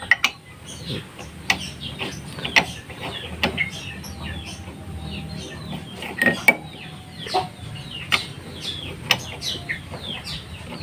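Flywheel puller being threaded by hand into a Honda Supra X's magneto flywheel: irregular light metal clicks and scrapes. Chickens cluck in the background.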